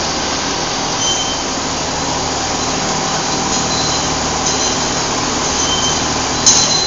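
Richpeace automatic pattern sewing machine running steadily, its needle stitching a winter-coat panel, with one sharp click near the end.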